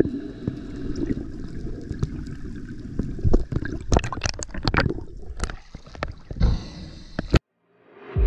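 Underwater sound as heard through a camera's waterproof housing: a low rush of water with scattered sharp clicks and knocks. It cuts off to silence about seven seconds in.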